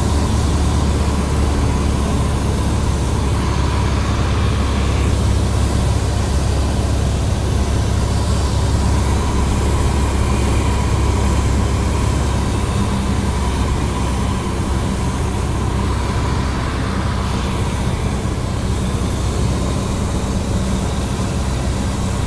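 Cessna 172's piston engine and propeller heard from inside the cabin in flight: a loud, steady, low drone that holds even throughout.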